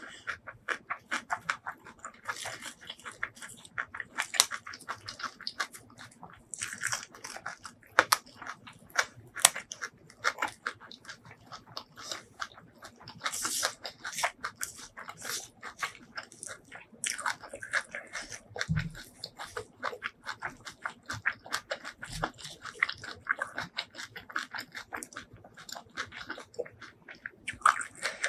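Close-miked chewing and crunching of a spicy Thai rice noodle salad with raw long beans and fresh herbs: a dense, irregular run of wet mouth clicks and crisp crunches, with no talking.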